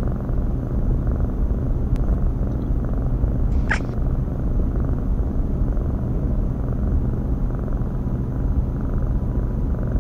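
A cat purring steadily and loudly, a deep continuous purr. A brief higher sound cuts across it once, just under four seconds in.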